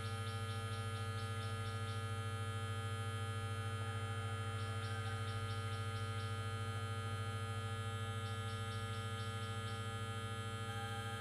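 Steady electrical hum through a speaker system's amplifier, caused by the newly fitted USB Bluetooth card. Three short runs of rapid high ticking come through over it: near the start, about halfway, and late on.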